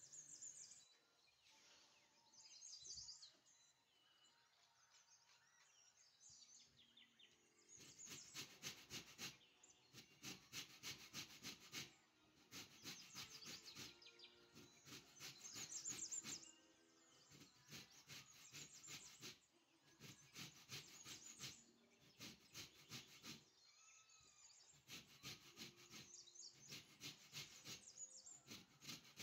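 Orange peel being rubbed against the fine zesting face of a metal box grater, rasping in quick, even strokes about four or five a second, in runs with short pauses between them. The grating starts about eight seconds in; before that there is only faint, scattered sound.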